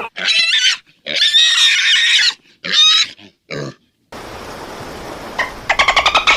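Animal calls: four loud, high-pitched cries in the first four seconds, then, after a sudden change to a steady background hiss, a rapid run of short repeated calls near the end.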